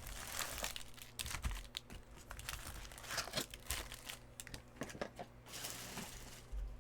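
Trading-card pack wrapper being torn open and crinkled by hand: a run of irregular crackles and rustles.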